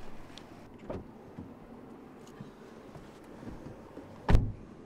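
Faint rustling and a light knock, then a car door shutting with a single loud thud near the end.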